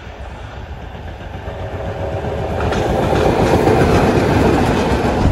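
Class 66 diesel locomotive, with its two-stroke V12 engine, approaching and passing close by. The engine and the wheels clattering on the rails grow louder over the first three seconds and are loudest as the locomotive goes by.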